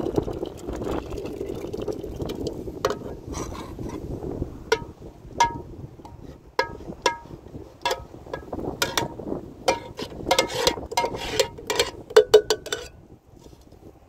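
Liquid pouring from an aluminium pot into a metal pitcher, followed by a metal spoon scraping and tapping against the aluminium pot, each tap ringing briefly. The taps come faster near the end, then stop.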